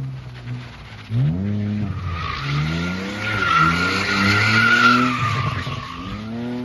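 BMW E46 320i's straight-six engine revving up and down again and again as the rear tyres spin and squeal while the car turns donuts. The tyre squeal is loudest from about two to six seconds in.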